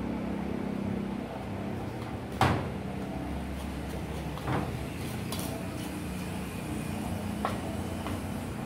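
A few short clinks of ceramic plates and bowls as cooked fish is picked apart and put in a bowl by hand, the loudest about two and a half seconds in and two lighter ones later. A steady low hum runs underneath.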